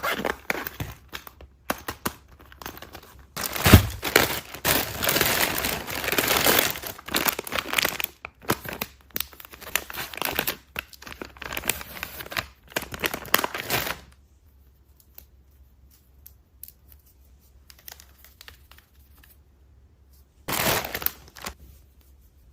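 Packaging crinkling and tearing as it is handled, in dense bursts for about the first fourteen seconds. Then comes a quiet stretch with only faint small sounds, and a short burst of crinkling near the end.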